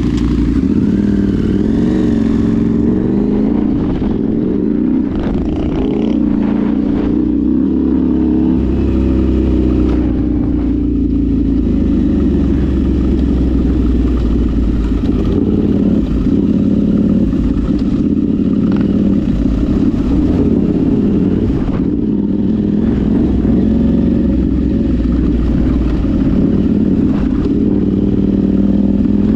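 Off-road vehicle engine running as it drives, its pitch rising and falling with the throttle, over a deep rumble with occasional knocks and rattles.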